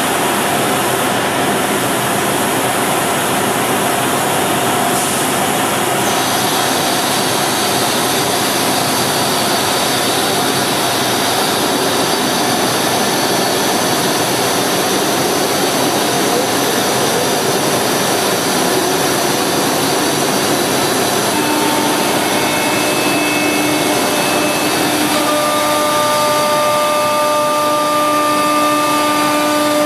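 Techno Isel LC 4896 CNC router running: a loud, steady rushing machine noise. Several steady whining tones come in about two-thirds of the way through.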